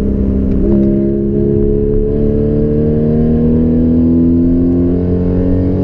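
Porsche Cayman S flat-six with an aftermarket Borla exhaust, heard from inside the cabin: the revs drop on an upshift about half a second in, then the engine pulls steadily higher under acceleration.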